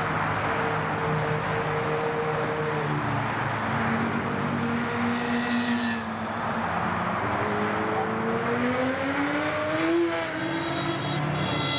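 Motorcycle engine running at road speed under heavy wind and road noise. The engine note drops about three seconds in, then climbs from about seven seconds in before falling away near the end.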